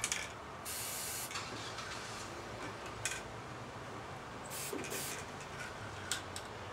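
Aerosol can spraying battery corrosion preventive onto the battery terminals: a hissing spray about a second in and two quick sprays near five seconds, with a few light clicks between.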